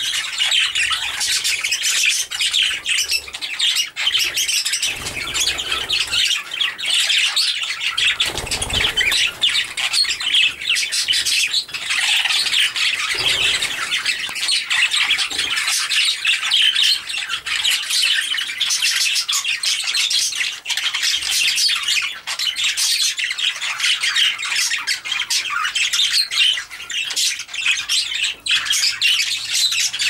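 A flock of budgerigars chattering and squawking, many birds calling at once in a dense, unbroken warble.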